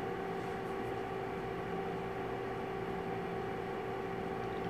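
Steady room tone: a constant electrical hum at a few fixed pitches over a soft hiss.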